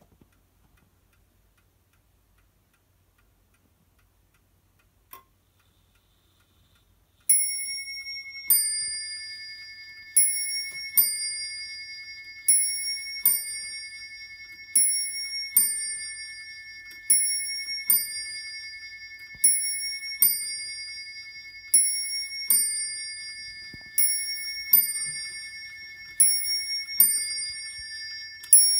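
1980s Du Chateau Neuchâtel ting-tang pendulum clock striking twelve. After a single click about five seconds in, it strikes the hour in ting-tang pairs, a high note then a lower one, about every two and a quarter seconds, each note ringing on; ten pairs begin before the striking runs on past the end.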